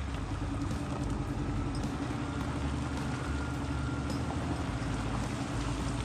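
Large Caterpillar mining wheel loader's diesel engine running with a steady drone.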